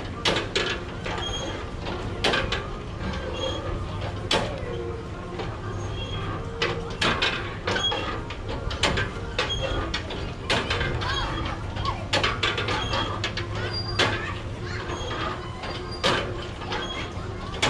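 Irregular metal knocks and clacks from a hand-powered spinning kiddie ride as it turns, with short squeaks every couple of seconds. A steady low hum runs underneath.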